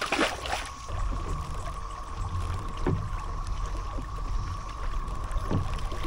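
A splash as a large common carp is let go into the water beside a kayak. Then water rumbles and laps against the moving kayak's hull, with two knocks, over a steady high drone of cicadas.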